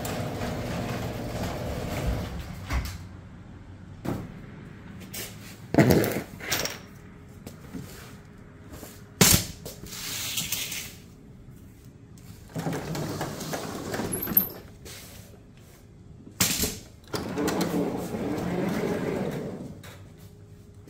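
An engine running steadily cuts off about two seconds in. Scattered clicks, knocks and short rustling, handling noises follow, with a few sharp knocks standing out.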